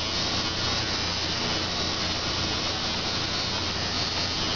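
Electric tattoo machine buzzing steadily as it works.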